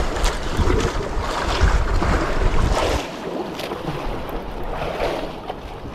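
Wind buffeting the microphone over sea water washing around a small boat, with the low rumble of the wind easing about halfway through.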